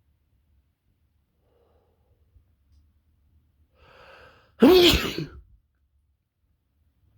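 A person with a cold sneezing once: a short intake of breath, then a sudden loud sneeze a little past halfway, lasting about a second.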